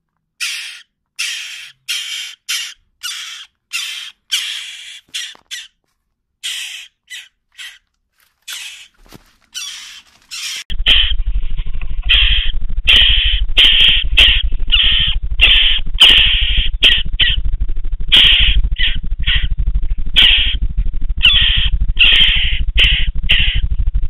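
Western jackdaw nestlings calling: short harsh calls repeated about one to two a second. From about ten seconds in the calls come through a small camera's microphone, cut off in the highs, with a steady low electrical hum beneath.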